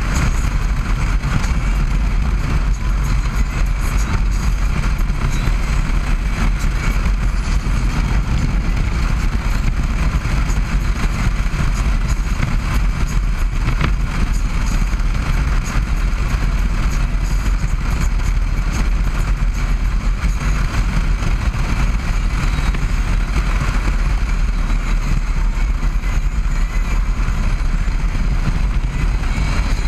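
Harley-Davidson Road Glide's V-twin engine running at a steady cruise, heard through heavy wind rumble on the bike-mounted camera's microphone.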